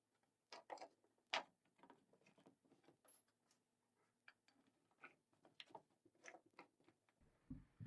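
Faint, irregular light clicks and taps of small parts being handled, with a soft thump near the end.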